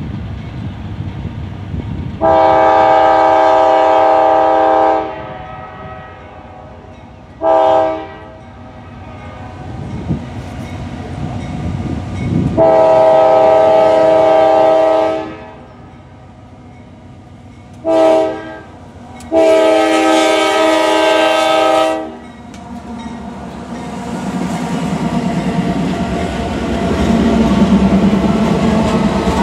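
Nathan K5LA five-chime air horn on the lead CSX GE AC44CW locomotive sounding for a grade crossing: three long blasts of about two and a half seconds, with a short blast between each. Near the end the diesel locomotives pass close, their engine and wheel noise rising.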